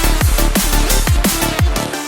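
Background electronic music, drum and bass with a fast, steady beat of deep kick drums that drop in pitch.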